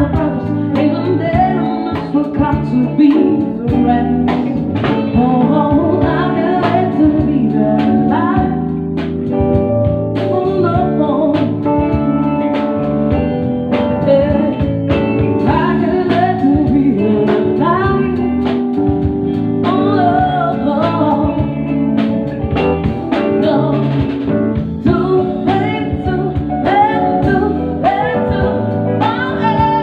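Live band music with a singer and regular drum beats, played loud.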